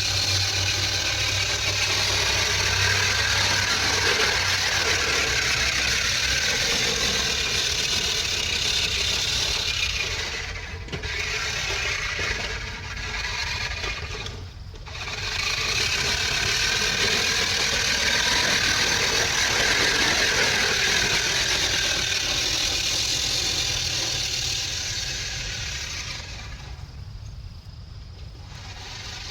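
Engine noise from an old sound-effects record. It swells and holds, dips briefly a few times, swells again, then fades near the end.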